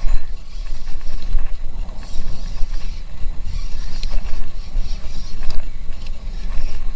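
Paddling a fishing kayak: a heavy low rumble of wind and water on the kayak-mounted camera, with scattered clicks and knocks from the paddle and fittings.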